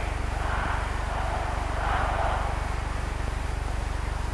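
Steady low hum and buzz of an old film soundtrack, with faint stadium crowd noise swelling about half a second in and again, a little louder, around two seconds in.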